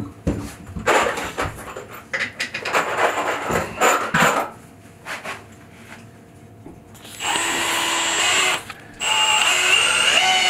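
Knocks and rustling of handling, then a cordless drill-driver running twice, about seven and nine seconds in, driving deck screws into a wooden 1x4 support board.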